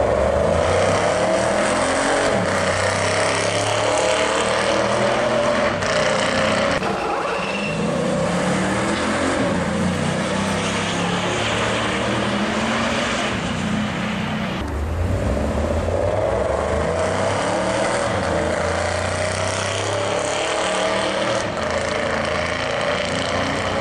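Lexus RC F safety car's 5.0-litre V8 running steadily and loudly as it drives along the circuit, with a wavering engine note. The sound eases briefly about 7 seconds in and again about 15 seconds in.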